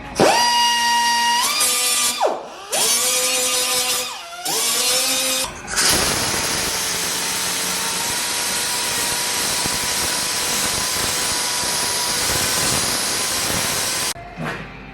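Power tool used in body repair on a steel door panel: it spins up three times in short bursts, its whine climbing as it gets up to speed and falling away when released, then runs steadily for about eight seconds with a loud, even hiss until it cuts off shortly before the end.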